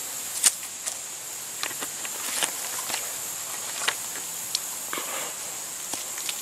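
Steady high insect drone with scattered small clicks and rustles.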